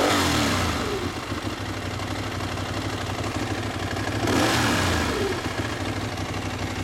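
Ducati 1098's L-twin engine idling and blipped twice, near the start and again about four seconds in. After each rev a short whine glides in pitch as the revs settle. The owner calls it a weird noise, a "whoo" after the rev, and its cause is not known.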